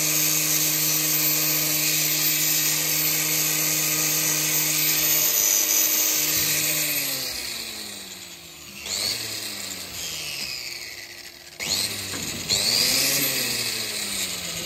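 Angle grinder with a hoof-trimming disc grinding the horn of a cow's claw, running at a steady high whine. About seven seconds in it is switched off and winds down, then it is run again in short spells near the end, its pitch rising and falling.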